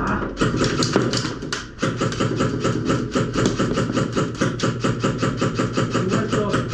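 Airsoft gun firing a long steady string of shots, sharp cracks about six to seven a second, with a brief break about two seconds in.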